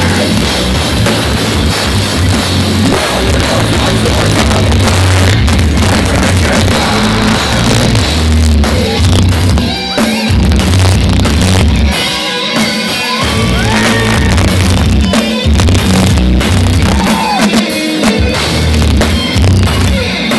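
Heavy metal band playing live through a loud PA: distorted electric guitars and a pounding drum kit, with the bass and drums dropping out briefly a couple of times about halfway through.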